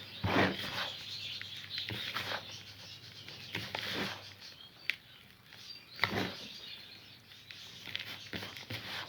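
Crumbly homemade bird egg food being mixed together, an irregular rustling and scraping with scattered crackles and a brief sharp squeak about halfway through.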